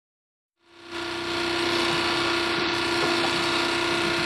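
Industrial sewing machines running steadily: an even mechanical whir with a steady hum. It fades in about half a second in and cuts off abruptly at the end.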